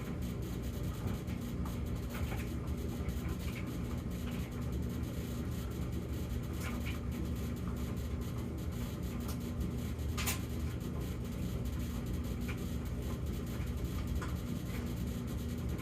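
Samsung gas dryer running in its normal phase, a steady drum-and-motor sound without the intermittent high or low hum, with scattered light clicks and one sharper click about ten seconds in.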